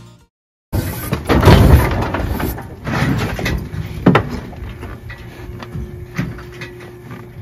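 Steel cattle squeeze chute clanking and banging as a cow is held in its head gate, with sharp metal knocks about a second and four seconds in and a faint steady hum underneath in the second half.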